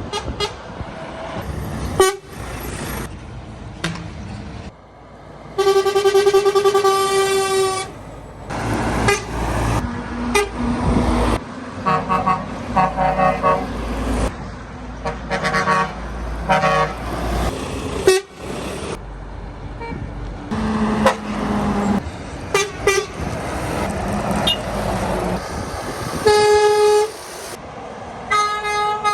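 A series of truck horn blasts over traffic noise. One long, steady blast comes about six seconds in, a run of short toots follows in the middle, and further short blasts come near the end.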